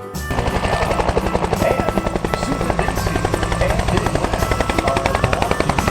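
Helicopter rotor sound: a rapid, even chopping beat that starts just after the beginning and keeps a steady pace throughout.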